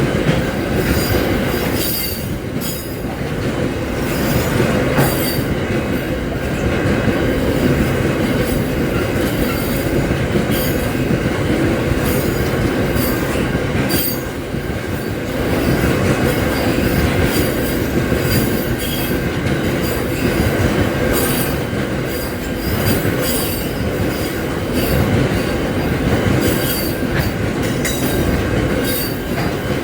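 Aurizon minerals freight train rolling past: a steady rumble of wagons on the rails with frequent sharp clicks and an intermittent high squeal from the wheels.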